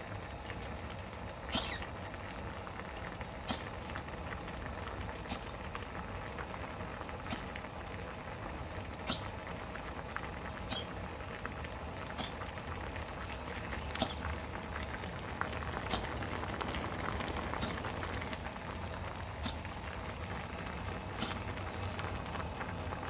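Prawn ramen broth boiling hard in a small aluminium pot on a gas burner: a steady bubbling with sharp pops every second or two.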